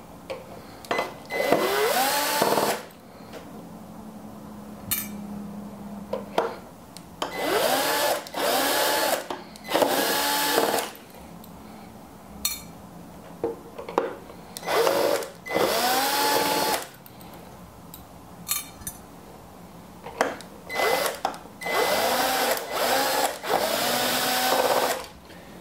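Cordless drill-driver backing out small Phillips screws: several short runs of the motor, each whining up in pitch as it spins up and then holding, in about four groups, with small clicks and taps between.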